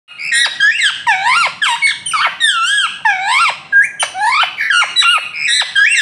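Rose-ringed parakeet (Indian ringneck) giving a rapid, unbroken run of shrill squawking calls, about two to three a second, each call sweeping up and down in pitch.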